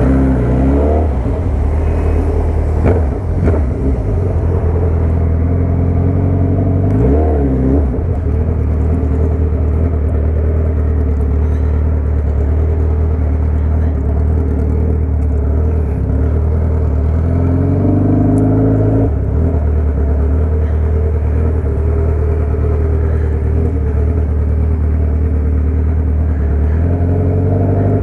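Inline-four motorcycle engine with an aftermarket exhaust running at low speed, a steady low note with a brief rev up and back down about seven seconds in and another rise in revs around two-thirds of the way through.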